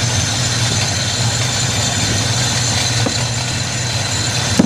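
Box Chevy Caprice engine idling steadily with the valve cover off during a lifter adjustment; it is running rough, and the owner is chasing a popping out the exhaust that he has suspected to be timing or carburettor. A faint short pop about three seconds in, and a sharper one at the very end.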